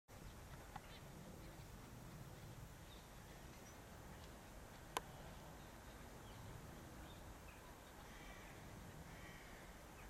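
Faint calls of a distant flock of gulls over a low background rumble, with one sharp click about five seconds in.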